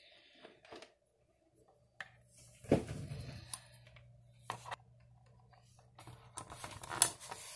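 Scattered plastic clicks and knocks from handling a corded desk telephone while a phone-line cable's plug is fitted into the jack on its back. The loudest knocks come about a third of the way in and near the end, with a low hum for a few seconds in between.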